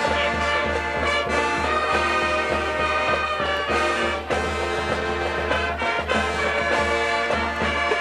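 High school marching band playing, with the brass carrying a swing-style tune over a steady low bass line.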